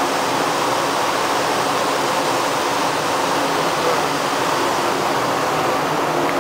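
Steady rushing of water as a canal lock chamber floods. A faint steady hum runs underneath.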